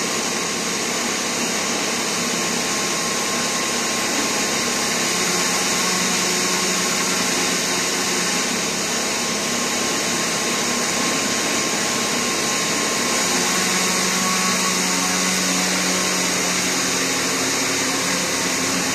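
Steady, unchanging whir of running workshop machinery with a strong hiss of moving air.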